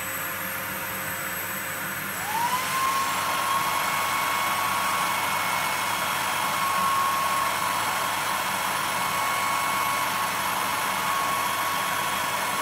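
Electric hair dryers run steadily as the load on a circuit breaker under overcurrent test. About two seconds in, a fan motor spins up with a rising whine that settles into a steady high tone, and the overall sound grows louder as the load climbs to about 10 A.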